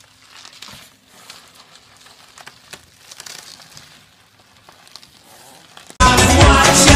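Plastic bubble wrap faintly crinkling and crackling as a small dog squirms inside a tube of it on carpet, over a faint steady hum. About six seconds in, loud dance music cuts in suddenly.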